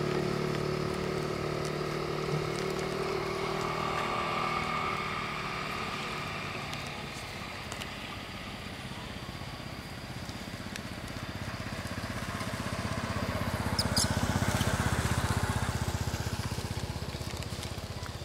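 Motor vehicles passing on the road: one engine hum fading away over the first few seconds, then another engine approaching, loudest about three-quarters of the way through, and receding.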